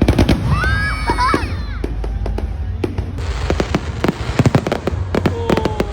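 Aerial fireworks going off at close range: a rapid, irregular run of sharp cracks and bangs. A high voice calls out over them in the first second or so.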